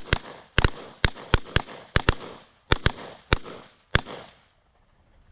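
Two shotguns firing rapidly on a steel dueling tree, about a dozen sharp bangs in four seconds, some in quick pairs, each with a short ringing tail. The firing stops near the end once the plates are cleared.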